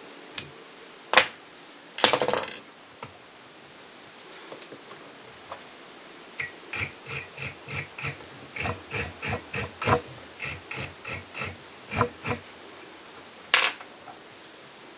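Light clicks and taps of small tools being handled: a few single clicks and a brief rattle early on, then a run of about twenty quick clicks at roughly three a second, and one last click near the end.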